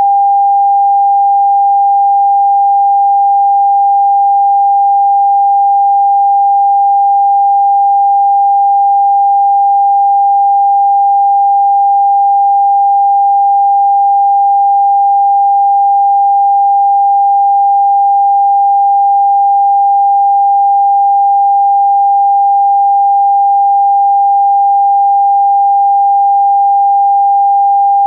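Electronically generated pure sine tone, a single steady mid-pitched note held without any change: a Rife frequency tone played for frequency therapy.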